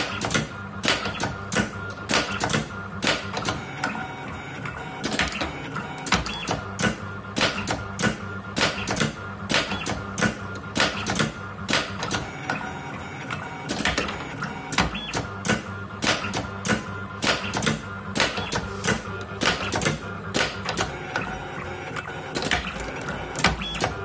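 Automatic wire cutting, stripping and bending machine running: feed rollers pulling wire while the blades and bending head clack in a quick repeating cycle, about two or three sharp clicks a second over a steady motor hum.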